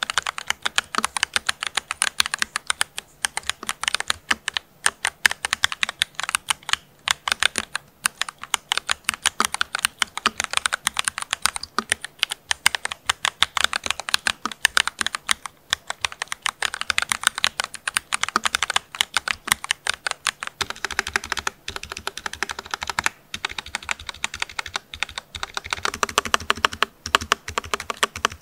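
Typing test on the X-Plus VickyBoard, an ergonomic ortholinear Alice-layout mechanical keyboard with Gateron G Pro 3.0 Brown tactile switches, polycarbonate keycaps and a thick acrylic case with no dampening besides the switch pad: a fast, continuous run of keystrokes with a dense, solid sound.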